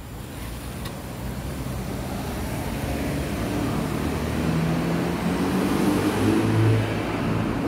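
Cars driving through a road underpass, their engine and tyre noise growing steadily louder as they approach, loudest shortly before the end.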